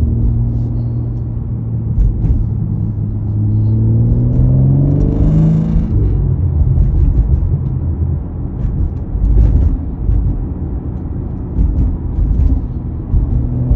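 BMW M4's twin-turbo straight-six engine heard from inside the cabin. It holds a steady note, climbs in revs about four seconds in, then falls back under low road rumble, with another rise in revs near the end. This is the acceleration at which the owner gets a weird noise from the passenger-side speaker, usually around 3,000 rpm.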